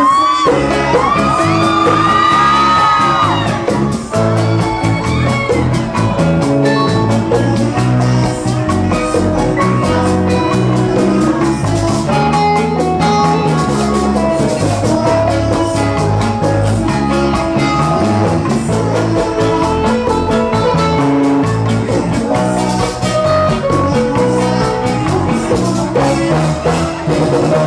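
A live bachata band playing, with a male lead singer over guitar backing. In the first few seconds he holds long, sliding notes.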